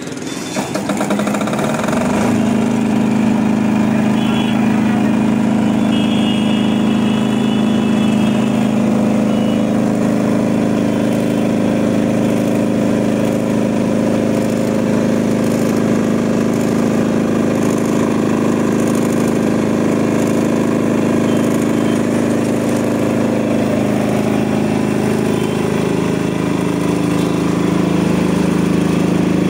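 Key-started 186F single-cylinder air-cooled diesel engine of a 5.5 kVA generator in a sound-proof canopy: the electric starter cranks it, it catches within about two seconds, then runs steadily.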